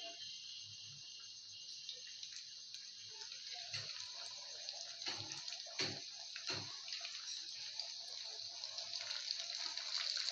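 Flour-coated chicken pieces deep-frying in hot oil in a pot: a steady sizzle that grows louder as more pieces go in, with a few sharp pops near the middle.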